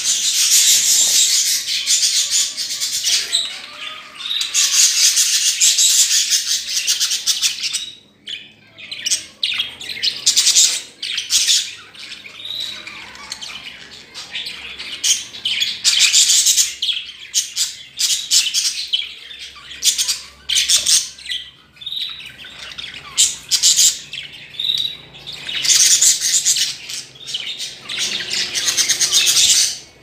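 Several caged small birds, budgerigars among them, chattering and chirping. Stretches of dense, high warbling chatter a few seconds long alternate with shorter single chirps.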